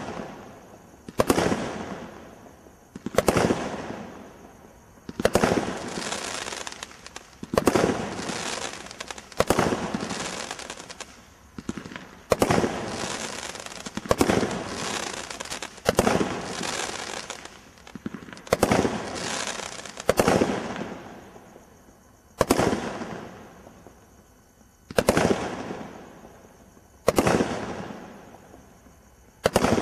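A Brothers Fanfare 42-shot display combination Roman candle cake firing, with a sharp bang about every two seconds as each shot goes off and breaks. Several of the breaks trail into a couple of seconds of crackle.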